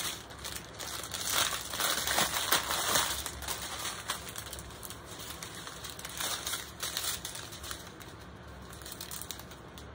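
Small plastic bags of diamond-painting drills crinkling as they are handled. The rustling is loudest between about one and three seconds in, then lighter.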